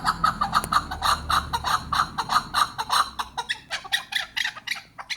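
Chukar partridge calling: a fast, even run of clucking chuck notes, about five a second, growing fainter after about three seconds.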